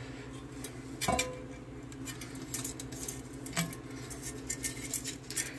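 Stainless steel canteen being handled: one metallic clink with a short ring about a second in, then a run of light clicks and taps from the canteen and its cap.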